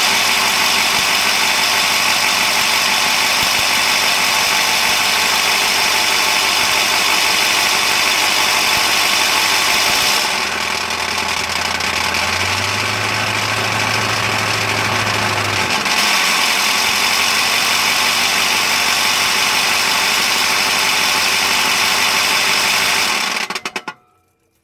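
A 7.3L Power Stroke V8 turbodiesel idling with the rough idle that is being diagnosed. It runs loud and steady, shifts in tone for a few seconds in the middle, and stops abruptly near the end.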